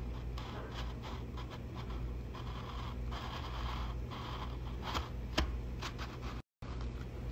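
Metal ring cutter being pressed and twisted through a thin Dutch waffle on a wooden board: irregular scraping and scratching, then a few sharp cracks about five seconds in.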